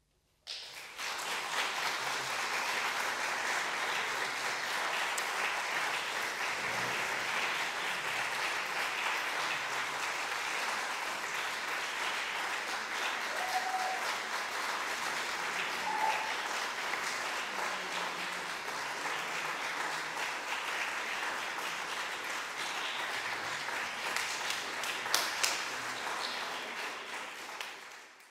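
Concert audience applauding, breaking out suddenly about half a second in after silence, holding steady, then fading away near the end.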